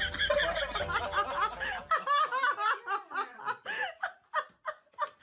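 Human laughter in quick, repeated short bursts. It is dense and overlapping at first, then thins to separate bursts toward the end.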